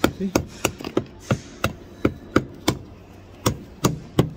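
Brick hammer's chisel blade striking a hollow concrete block in light, steady taps, about three a second, chipping the block's end away to make an open-end block.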